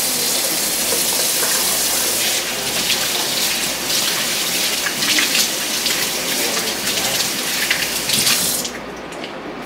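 Kitchen tap running in a steady stream while hands are washed under it; the water is shut off near the end.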